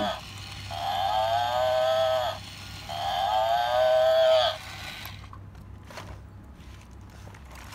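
A battery-operated toy water buffalo plays its electronic moo sound effect twice, each call about a second and a half long with a slight drop in pitch at the end.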